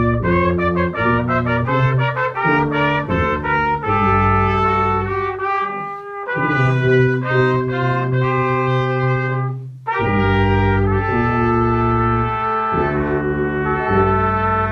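Brass music with trumpets and trombones: a quick run of short notes, then longer held chords, with a short break about ten seconds in.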